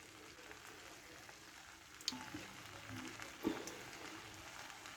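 Faint sizzling and bubbling of rice cooking in a pan, with a couple of light utensil clicks about two and three and a half seconds in.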